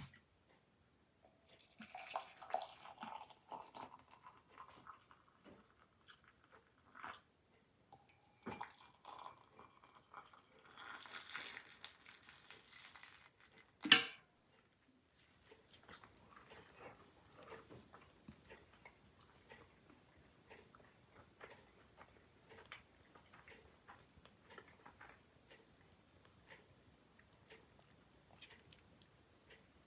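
Faint sounds of people eating: soft chewing and the small knocks of dishes and utensils, with one sharp knock about halfway through.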